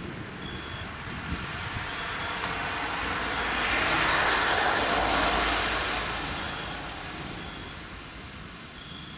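Rain during a night thunderstorm, with a rushing hiss that swells to a peak about four seconds in and then fades away. A faint, high, short beep repeats every second or so.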